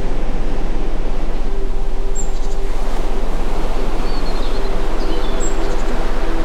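Steady rushing noise like surf or pink noise over a constant low hum, with soft held tones and a few short, high bird chirps.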